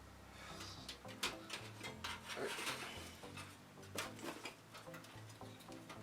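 Irregular clicks and knocks of hardware being handled and fitted inside a small computer case, the sharpest about a second in and about four seconds in, over faint background music.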